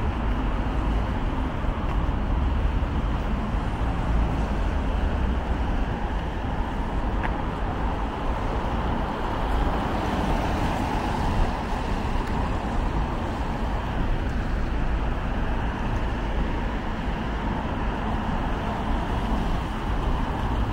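Steady city road traffic: a continuous rumble of passing cars and other vehicles, with no single event standing out.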